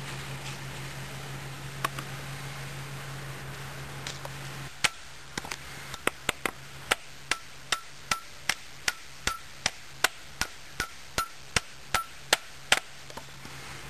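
Batoning with a large fixed-blade survival knife (ST3-F): a wooden baton strikes the knife's spine to drive the blade through a log, about twenty steady blows at roughly two and a half a second, each with a brief metallic ring. The blows start about five seconds in and stop shortly before the end.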